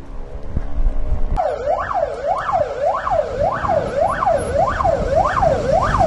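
Fire engine siren wailing, sweeping up and down in pitch a little under twice a second, starting suddenly about a second and a half in, over a low vehicle rumble.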